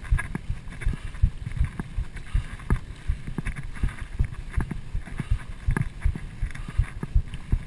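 A Trek Fuel EX full-suspension mountain bike rattling over a dirt trail: a steady run of rapid, irregular knocks and clatter.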